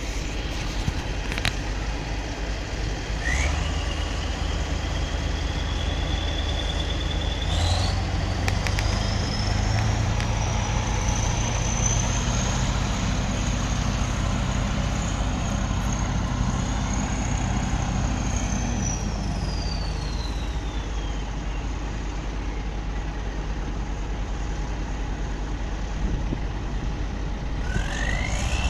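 Kirovets K-700A tractor's V8 diesel engine working under load as it tows a heavy trailer out of a bog. It revs up about three seconds in and again about eight seconds in, with a high whistle climbing with the revs, holds, then eases off after about twenty seconds and revs up again near the end.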